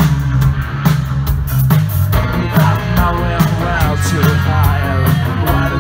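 Live rock band playing loud: electric guitars, bass guitar and drum kit, with a steady drum beat.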